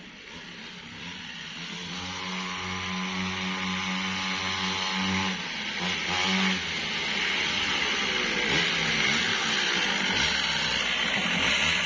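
Small two-stroke engine of a mini cross pocket bike being ridden. It runs at a steady pitch for a few seconds, then rises and falls with the throttle, growing steadily louder as the bike comes closer.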